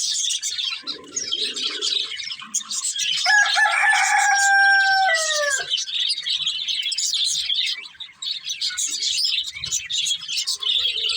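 Budgerigars chattering and chirping continuously in quick high twitters. About three seconds in, a single louder, lower call is held for about two seconds and drops in pitch at its end.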